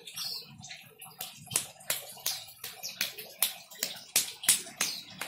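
A small child's hand slapping and patting a ceramic tile floor again and again, sharp pats that come about two or three a second from about a second in.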